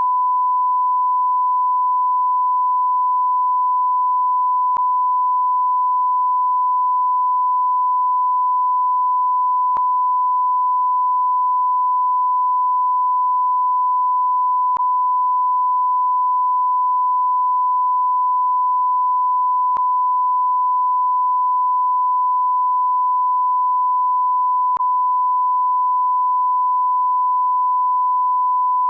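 A continuous 1 kHz censor bleep: one steady pure tone held at a constant level, with faint clicks about every five seconds where the tone loop joins.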